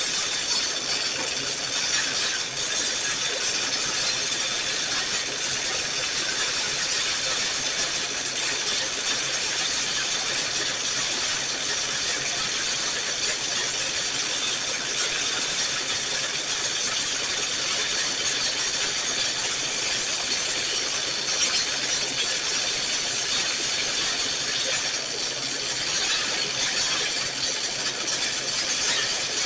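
Electric welding arc running steadily, an even crackling hiss, as a weld bead is laid on a broken hydraulic clevis.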